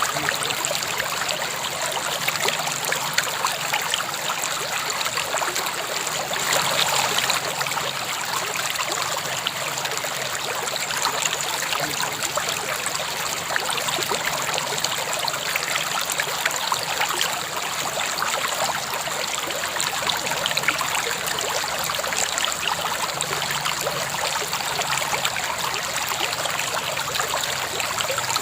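A river flowing: a steady rush of water with fine trickling and splashing detail.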